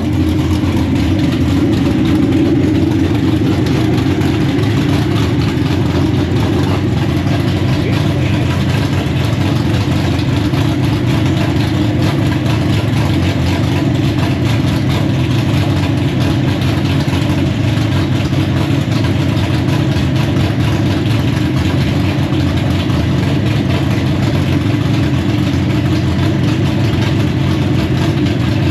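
Loud drag-racing car engine idling steadily during a pit warm-up, holding an even pitch without revving.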